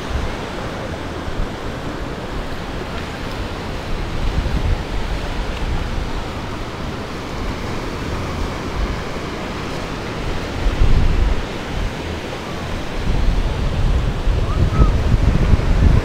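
Ocean surf washing onto a beach, with wind buffeting the microphone in low rumbling gusts, strongest about eleven seconds in and again near the end.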